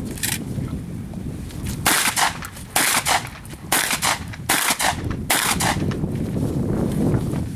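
Shotgun fired in a string of shots: one shot just after the start, then five more at a steady pace, about one every 0.8 seconds, each with a short echo.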